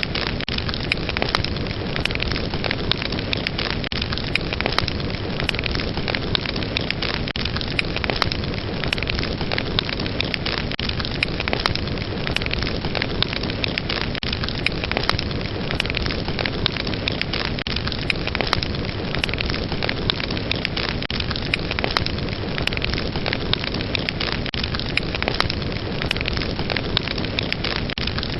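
Wood fire burning steadily, a dense hiss and rumble of flames with frequent sharp, irregular crackles and pops.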